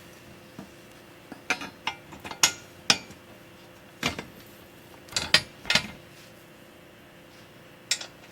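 Metal wrenches clinking and knocking against a bolt, nut and steel tricycle frame while the nylon-insert nut on the main frame pivot bolt is tightened: a dozen or so short, irregular clinks over about six seconds, then a pause and one more clink near the end.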